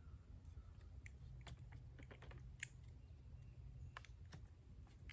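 Faint, scattered metallic clicks and ticks of the Davis D38 derringer being handled while it is reloaded, over a quiet background.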